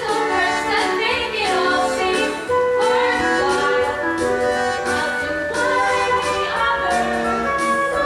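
Female voices singing a musical-theatre song over instrumental accompaniment, with held notes throughout.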